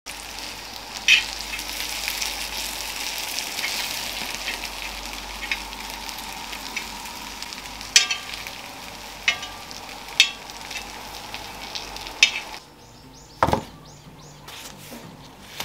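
Sweet corn pieces frying in oil on a cast-iron griddle, with a steady sizzle and metal tongs clicking sharply against the pan about five times as the pieces are turned. About 12.5 s in the sizzle stops, and a single thump follows a second later.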